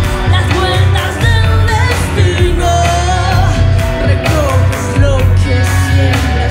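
Live music: a woman sings a wavering, held melody into a microphone over a heavy bass-driven beat.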